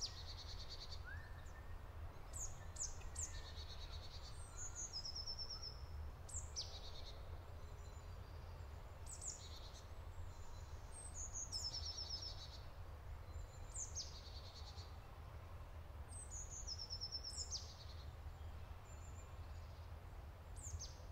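Bird song: a short high phrase of quick downward-sweeping notes followed by a fast trill, repeated about every two to three seconds, over a faint low rumble.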